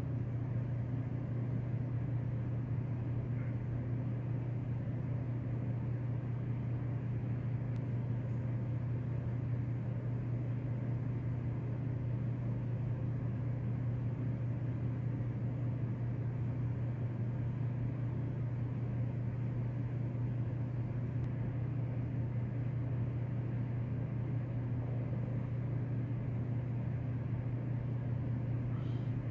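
A steady, unchanging low machine hum, like a motor running, with no other events.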